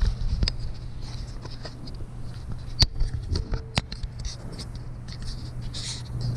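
Handling noise from a handheld camera: fingers rubbing and scraping close to the microphone, with a few sharp clicks, the loudest about three seconds in and another a second later, over a steady low hum.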